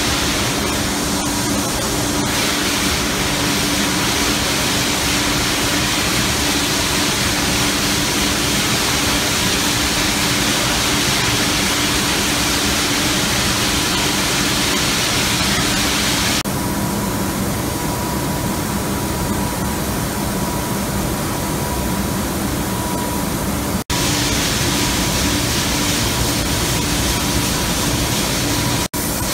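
Artificial-turf backing coating line running: a steady, even rushing noise with a low hum under it. The sound changes abruptly about sixteen seconds in and drops out for an instant twice near the end.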